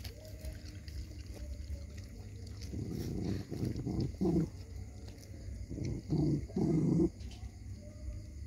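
A dog growling low in short rough bursts, in two bouts: one about three seconds in and a louder one around six to seven seconds.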